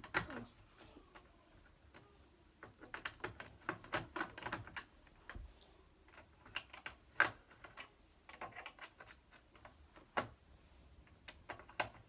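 Irregular light clicks and taps, some in quick clusters, from a hand screwdriver and fingers working screws out of a TV's plastic casing.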